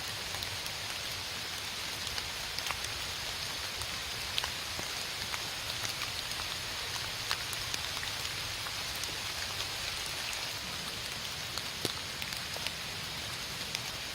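Steady rain falling, with scattered sharp ticks of single drops landing.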